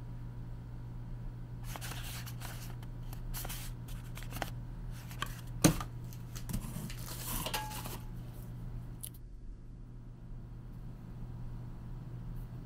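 Small objects being handled: rustling and clicking for several seconds, with one sharp click near the middle, over a steady low hum.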